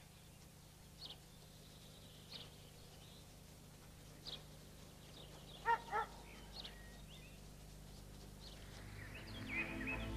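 A dog gives two short barks about six seconds in, over a faint outdoor background with a few brief high chirps. Soft music fades in near the end.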